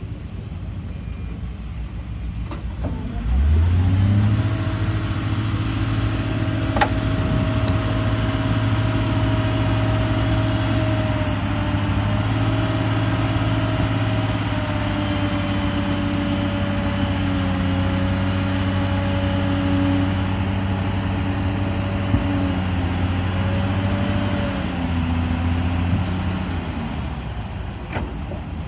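Heavy diesel engine of earthmoving machinery, a bulldozer or a dump truck, running low, then revving up about three and a half seconds in. It holds a steady high working speed under load, with a whine above the engine note, then eases down in steps near the end.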